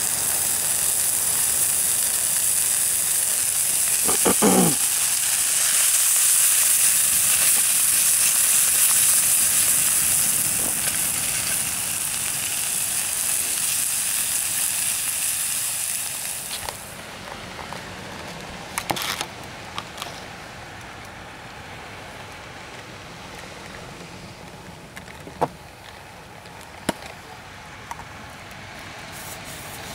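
Food sizzling over a campfire: a loud, steady hiss that falls away after about sixteen seconds, leaving quieter fire crackles and a few sharp clicks.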